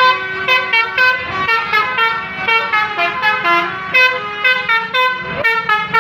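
Basuri telolet bus horns playing quick melodic runs of short notes, the pitch changing several times a second, with more than one horn sounding at once.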